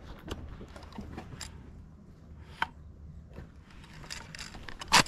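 Small metallic clicks and handling noises from an AK-47 that is failing to chamber a round, then one loud, sharp clack near the end.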